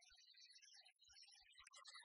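Near silence: faint, indistinct background with scattered light blips.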